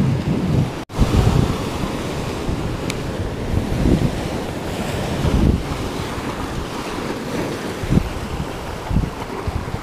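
Ocean surf breaking and washing over rocks, a steady rushing with heavier surges, and wind buffeting the microphone. The sound drops out for an instant about a second in.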